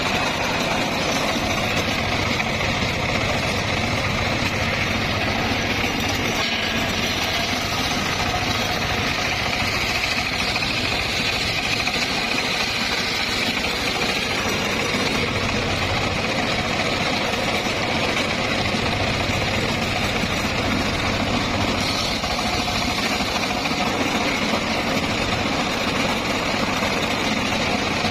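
Homemade circular sawmill running steadily, its drive engine and spinning blade holding an even, unchanging note.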